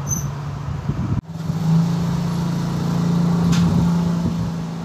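A steady low motor hum. It cuts off abruptly about a second in and comes back louder.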